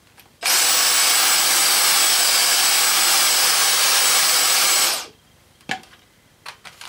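Dyson DC35 Digital Slim cordless handheld vacuum's motor switched on, running loud and steady with a faint high whine for about four and a half seconds, then switched off. One short knock follows about a second after.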